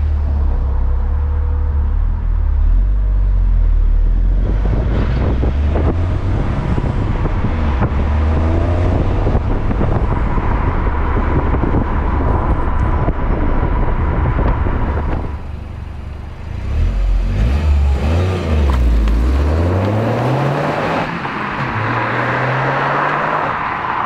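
Toyota GR Yaris's turbocharged three-cylinder engine heard through its stock resonated exhaust with the gasoline particulate filter, close to the exhaust while driving: a deep engine note under load, easing off briefly about two-thirds of the way in, then rising in pitch twice near the end as it accelerates.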